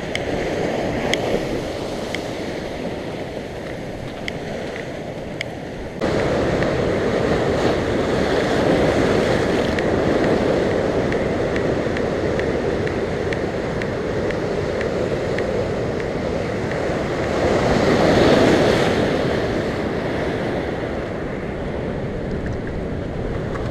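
Ocean surf washing and breaking over shoreline rocks, with wind buffeting the microphone. The surf gets louder suddenly about six seconds in, and a wave swells up and breaks about three-quarters of the way through.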